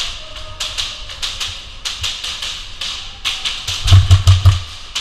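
Airsoft gunfire in the building: irregular sharp cracks, several a second, echoing down the corridors. About four seconds in, a quick run of heavy thumps is the loudest sound.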